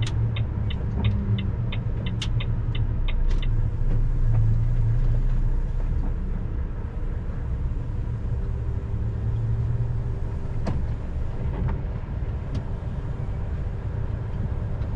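Truck engine droning steadily, heard inside the cab while driving through town. For the first three seconds a turn-signal relay ticks rapidly, about three ticks a second, then stops as the turn is finished.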